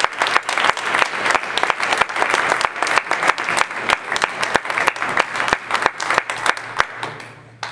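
Spectators applauding a point in a table tennis match, the clapping dying away near the end.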